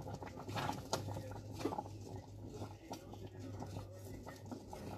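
Wooden spoon stirring thick rice pudding in a steel pot: soft scrapes and many small scattered taps against the pot, over a low steady hum.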